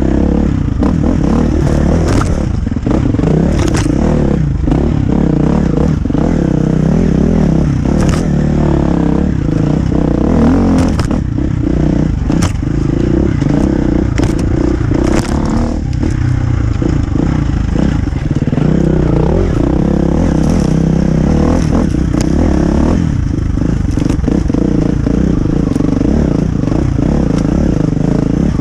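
Husqvarna FE350's four-stroke single-cylinder engine running hard, revs rising and falling as the enduro bike is ridden over rough ground, with repeated sharp clatters and scrapes throughout.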